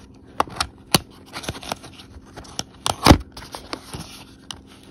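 Small white cardboard gift box being handled and opened: a run of sharp clicks and scrapes of fingers and nails on the card, with a louder knock about three seconds in.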